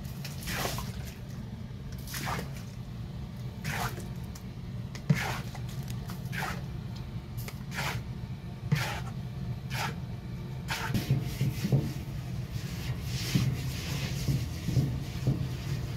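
Water thrown a bowlful at a time into a hot cast-iron kazan, each splash giving a short, sharp hiss as it flashes to steam, every second or two. A steady low hum runs underneath, and in the last few seconds there are low knocks against the pot.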